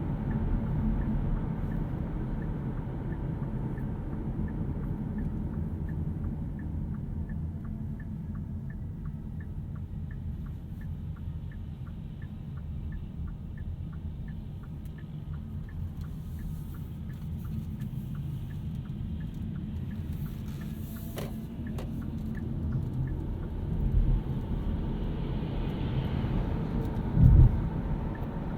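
Hyundai Kona Electric on the move: a steady low road and tyre rumble. A regular light ticking runs through the middle stretch, and two low thumps come near the end.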